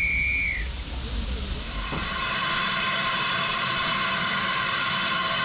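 Railway carriages rolling past with a low rumble, and a short high whistle tone right at the start. From about two seconds in, a steam locomotive's whistle sounds steadily and holds.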